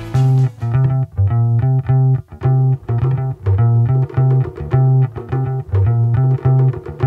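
Background music: a riff of short, choppy low notes in a steady rhythm.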